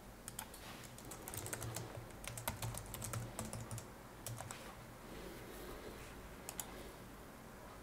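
Typing on a computer keyboard: a quick run of key clicks for the first few seconds, then a few single clicks later on, all fairly faint.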